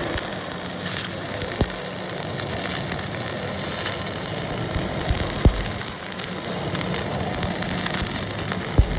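CO2 (MIG/MAG) welding arc crackling steadily, with a few sharp pops.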